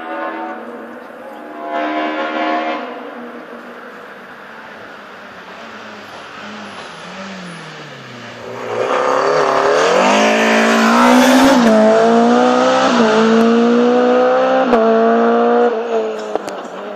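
Rally car coming up the stage and accelerating hard past, its engine climbing in pitch and dropping at each upshift, loudest about halfway through and fading near the end. A fainter engine fades away at the start, with a brief burst of engine noise about two seconds in.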